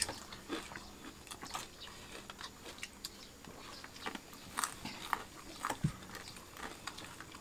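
People chewing food, with scattered soft mouth clicks and smacks.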